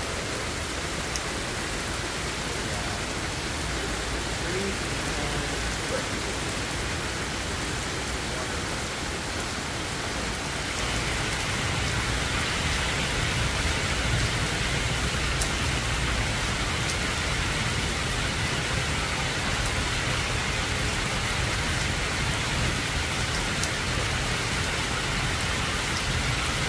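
Heavy rain falling steadily, first onto a swimming pool and then onto a flooded yard; it grows louder from about ten seconds in.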